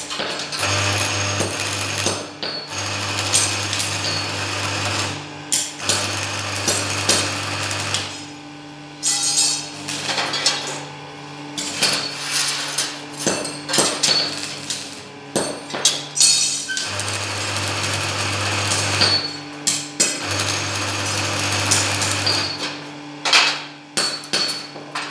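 Stick (arc) welding of a steel frame in short tack welds: five spells of about two seconds of arc crackle, each with the welding set's low hum, and sharp metal taps and knocks between them.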